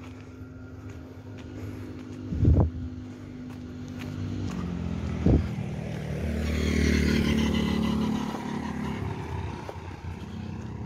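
A motor vehicle's engine hums steadily, then swells into a louder pass of engine and tyre noise from about six seconds in and fades as it goes by. Two short, loud thumps come before it, about three seconds apart.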